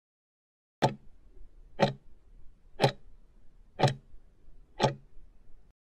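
Clock-tick sound effect counting off the last seconds of a quiz countdown timer: five sharp ticks, one a second, signalling that time is running out.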